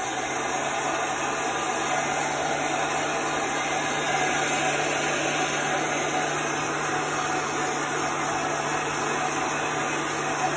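Industrial heat gun running steadily, its motor humming under a constant rush of hot air as it dries fabric ink.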